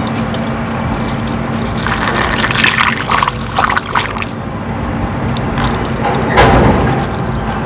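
Coolant being poured into a Subaru STI's new radiator, splashing and gurgling in bursts, with the loudest about two seconds in and again near the end, over a steady low hum.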